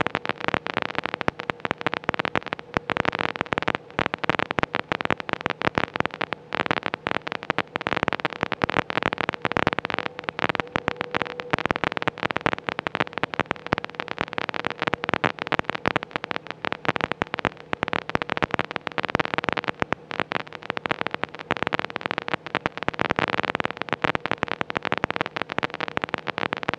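Constant rapid crackling interference on an autogyro's radio/intercom audio, with a steady hum underneath. It is the electrical noise that the uploader calls constant crackles, which the pilot puts down to poorly suppressed interference.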